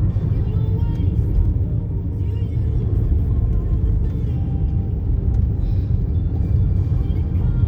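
Steady low rumble, with faint brief tones above it.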